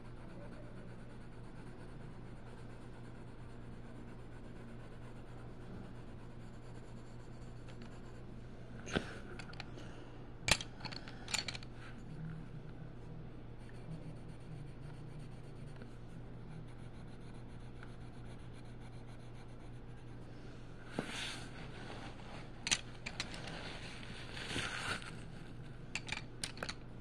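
Coloured pencil scratching faintly on a colouring-book page over a steady low hum, with a few sharp clicks and knocks. Near the end the clicks and rattles come thicker as pencils in the holder are handled to pick another colour.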